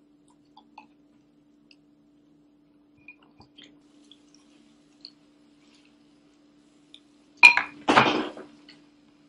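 Faint scattered crunching of dry cereal being chewed by a dog, then about seven and a half seconds in a loud clatter and rustle, in two quick onsets, as hands dig into a bowl of dry cereal, lasting about a second.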